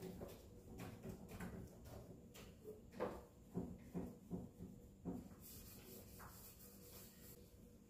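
Cloth and rubber-gloved hand wiping down a countertop microwave: a string of soft knocks and bumps, then a light rubbing hiss for a couple of seconds near the end.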